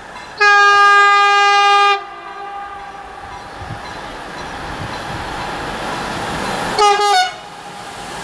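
Horn of a Siemens E189 (ES64F4 Eurosprinter) electric locomotive: one long blast, the Polish Rp1 "attention" signal, then a short second blast near the end. Between the two blasts the rumble of the approaching freight train grows steadily louder.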